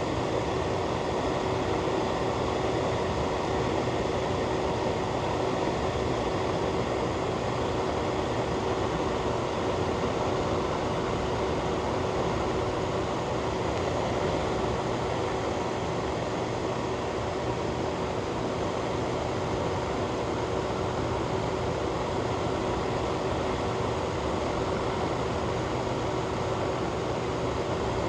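Ventilation fan running steadily: an even whooshing rush of air with a constant low hum.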